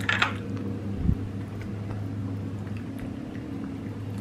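Cats eating wet canned cat food from plates, with a few sharp clicks and smacks near the start and a low thump about a second in, over a steady low electrical hum.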